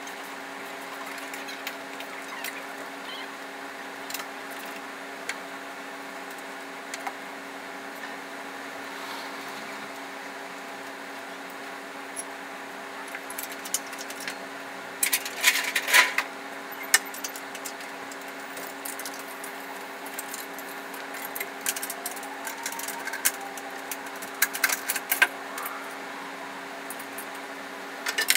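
Scattered metal clinks and rattles from hand tools and a hydraulic engine hoist while an engine is lowered into an engine bay, loudest in clusters about halfway through and again near the end, over a steady hum.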